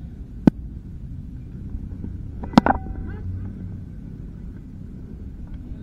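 A louder double crack about two and a half seconds in, the sound of a cricket bat striking the ball. There is also a single sharp knock about half a second in, over a steady low rumble on the action-camera microphone.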